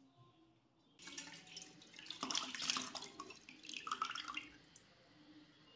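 Water poured from a plastic bottle into a stainless steel bowl holding two small live fish, splashing and trickling. It starts about a second in and fades out near the end.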